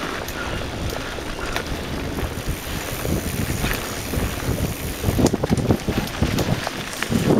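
Wind buffeting the microphone over a riding mountain bike's tyres rolling on a dry dirt singletrack, with irregular knocks and rattles as the bike jolts over bumps. The jolting grows louder about five seconds in.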